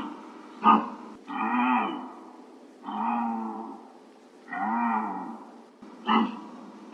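Deer calling: three drawn-out calls, each under a second with a pitch that rises and falls, and a short sharp call under a second in and another near the end.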